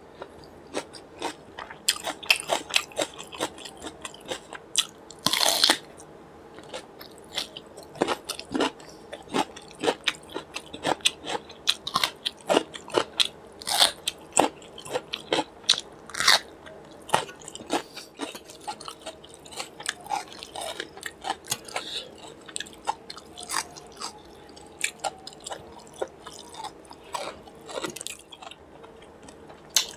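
Close-miked chewing and crunching of a mouthful of rice with raw cucumber: an irregular run of sharp crunches and wet mouth clicks, with a louder cluster about five seconds in.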